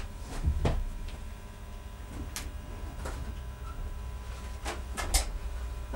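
Scattered knocks and shuffling footsteps of a man walking over and sitting down at an organ bench, the loudest knocks about two and five seconds in, over a steady low hum.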